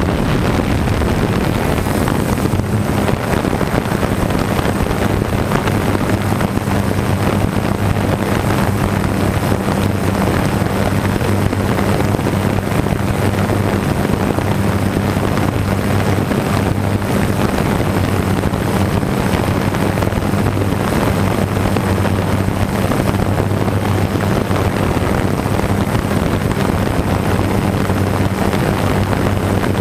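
DJI F550 hexacopter's electric motors and propellers running in a steady hover-and-drift drone, a constant low hum with rushing wind noise over the onboard GoPro's microphone.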